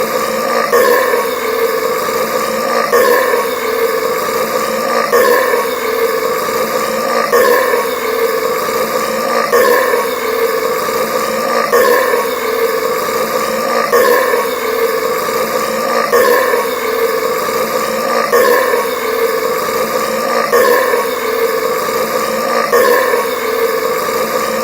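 A man's loud, drawn-out burp, brought on by drinking carbonated soda, repeating about every two seconds as a loop.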